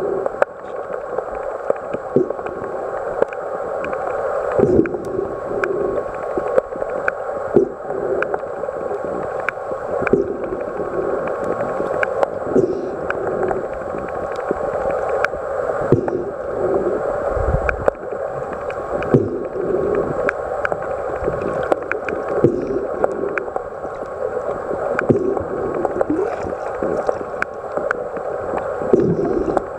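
Underwater ambience picked up by a submerged camera: a steady, muffled rush of water with frequent small clicks and occasional dull knocks as swimmers move around it.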